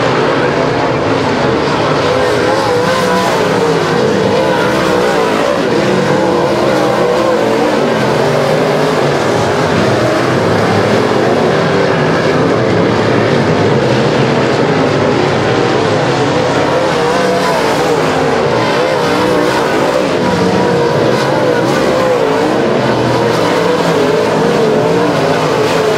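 Pack of dirt modified race cars' V8 engines at racing speed, their engine notes rising and falling continuously as the cars lap a dirt oval.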